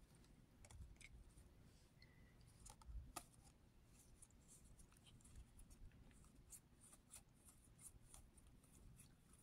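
Near silence with faint, scattered clicks and light rustles of trading cards being handled and laid down on a playmat, a little louder about three seconds in.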